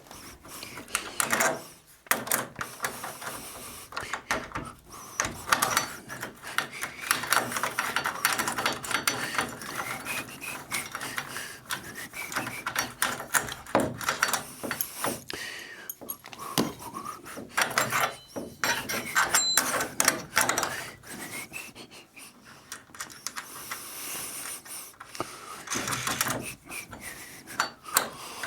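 Irregular rustling, scraping and knocking of materials and tools being handled and moved about, with many short clicks and thumps.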